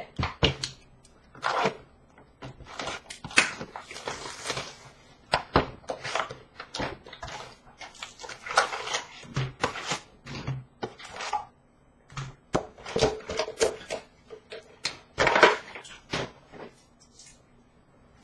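Hockey cards and packs being handled by hand: irregular taps, clicks and rustles as cards are slid, stacked and set down.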